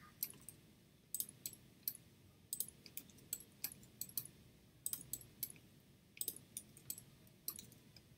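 Computer mouse and keyboard clicks: short, sharp and irregular, about two to three a second.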